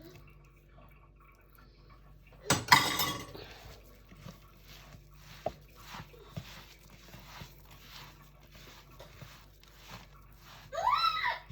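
Kitchen dishware clattering once, loudly and briefly, about two and a half seconds in, then faint scattered taps of handling at the worktop. Near the end a voice calls out briefly.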